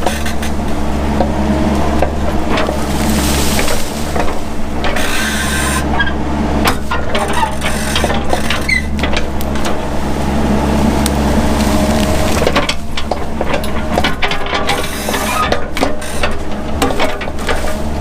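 Mini excavator engine running steadily under load, with irregular cracking, snapping and crunching of brush and woody underbrush being torn out, and occasional metallic clanks and squeaks from the machine.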